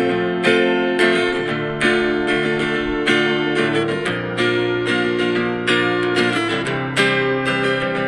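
Instrumental intro of a children's dance song: strummed acoustic guitar chords in a steady rhythm, with no singing yet.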